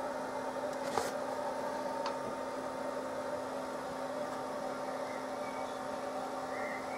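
Steady machine hum with a few constant tones, with a single sharp click about a second in and a fainter tick a second later.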